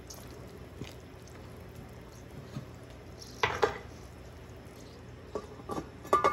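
A couple of sharp knocks of a utensil on a large metal cooking pot about three and a half seconds in, then the metal lid set down on the pot near the end with a clank and brief metallic ringing.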